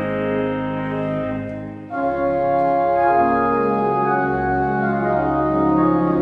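Church organ playing slow, held chords. The first chord fades away a little under two seconds in, and a new, fuller chord starts right after it, with the held notes moving slowly from there.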